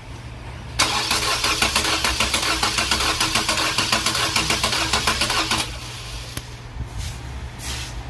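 2014 Nissan Versa's HR15 1.5-litre four-cylinder engine cranked over on the starter for a compression test on cylinder three, chugging in a quick, even rhythm for about five seconds before it stops suddenly without starting.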